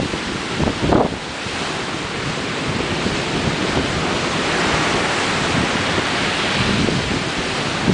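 Ocean surf: waves breaking and washing ashore in a steady rush that swells about halfway through. Wind buffets the microphone with low rumbles in the first second.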